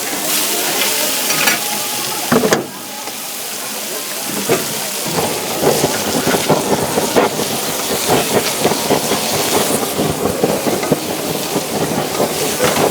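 Beef steak sizzling and crackling as it fries on a hot cooking surface. The sizzle dips sharply about two and a half seconds in, then returns denser and more crackly.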